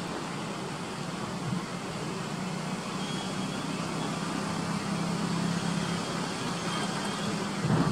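Nikon Coolpix B700's lens zoom motor running steadily as the lens zooms in, picked up by the camera's built-in microphone as a low hum that stops near the end. It sits under a steady hiss of wind and distant surf.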